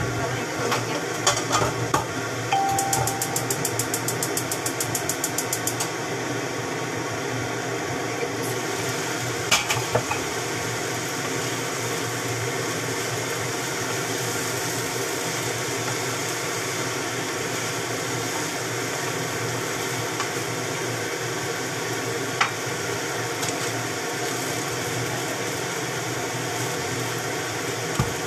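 Chopped cabbage stir-frying in a wok, a steady sizzle with now and then a knock of the utensil against the pan. A short beep and a fast run of even ticks come a few seconds in.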